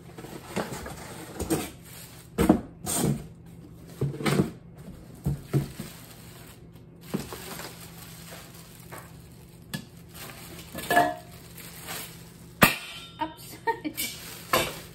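Saladmaster stainless steel wok and lid being unpacked: plastic wrapping rustling and crinkling, with scattered knocks and clinks of the metal pan and lid, the sharpest one a little past two-thirds of the way in.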